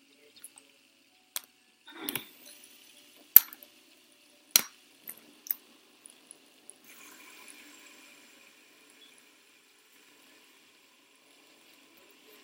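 Metal fidget spinners being handled: about six sharp clinks and taps in the first half, the loudest about three and a half seconds in. Then a faint steady whir with a thin high tone, fading after a few seconds, as a spinner spins down.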